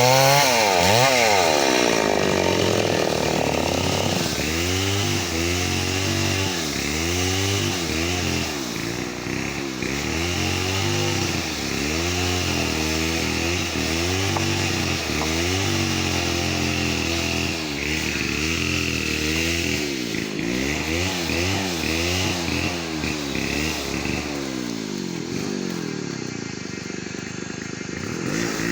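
Chainsaw cutting wood, its engine speed rising and falling again and again under load.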